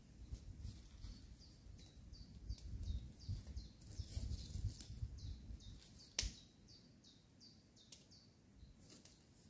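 A small bird calling over and over with short, high, falling chirps, about two a second, over an uneven low rumble. A single sharp click comes about six seconds in.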